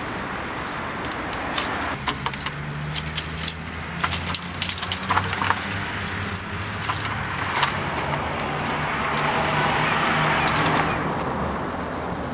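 A motor running with a steady low hum from about two seconds in, against busy outdoor background noise, with scattered sharp clicks and taps over the next six seconds.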